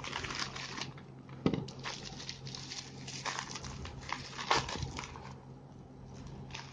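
Packaging being handled and opened by hand: irregular rustling and crinkling with a few sharper clicks, the loudest about a second and a half in and again about four and a half seconds in.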